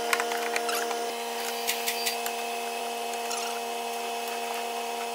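Scattered metallic clicks of a ratchet and socket on the gearbox oil level plug as it is cracked off and undone, mostly in the first two seconds. A steady hum runs underneath.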